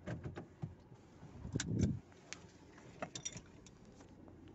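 Handling noise inside a quiet car cabin: a scatter of light clicks and knocks with one louder dull thump about a second and a half in, as the phone filming is turned around.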